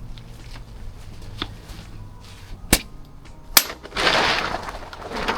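Workshop handling noise: two sharp knocks a little under a second apart, then a loud rush of noise lasting over a second.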